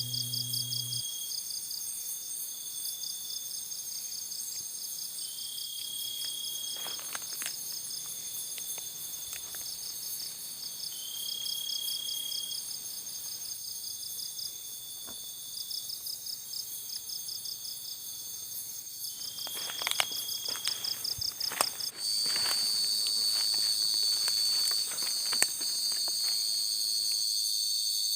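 Chorus of crickets and other insects: steady high shrill tones with a pulsing trill and a short chirp repeating every couple of seconds, plus a few faint clicks. About two-thirds of the way through, the chorus switches abruptly to a louder, steadier shrill.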